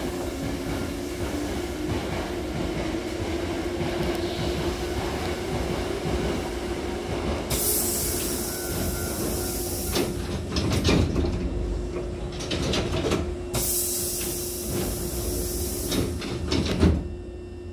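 Hankyu train standing at a station platform, with a steady hum throughout and two bursts of high hiss a few seconds apart. Its passenger sliding doors then close, ending with a loud thump shortly before the end.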